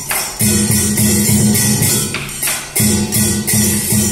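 Traditional Vietnamese water-puppet theatre music: rhythmic percussion with cymbal-like strokes over plucked strings. It drops away briefly twice.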